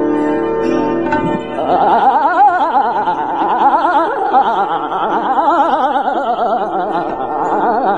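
Hindustani classical vocal music in Raag Durga. Steady held notes open it, then about a second and a half in a fast, rapidly wavering melodic run begins and carries on.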